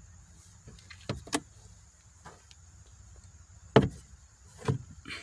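Plastic clicks and knocks from a 2014 Honda CR-V's glove box as its sides are squeezed in and it drops down past its stops. Two small clicks come about a second in, and single knocks near four seconds and just under five seconds; the one near four seconds is the loudest.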